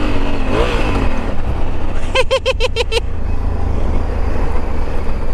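Honda CRF1100L Africa Twin motorcycle being ridden: a steady low rumble of engine and wind on the microphone. A little over two seconds in comes a quick run of about six high chirps.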